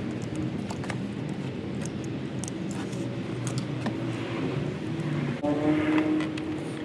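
Scattered light clicks of a ratchet wrench and socket working the spark plug out of a Honda Navi's engine, over a steady background drone of vehicle engines; a louder pitched engine tone sets in about five and a half seconds in.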